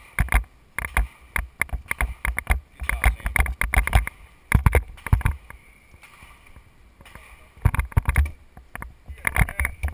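Gunfire from several shooters on a firing line: rapid, irregular shots of differing loudness, with a lull of about a second and a half past the middle before the firing picks up again.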